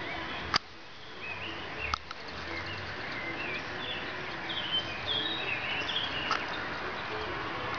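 Birds singing in short chirping phrases over a steady background hiss. A sharp click comes about half a second in, and a smaller one about two seconds in.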